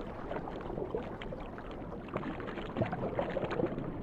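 Water sloshing and bubbling: a steady rush of water with scattered small crackles.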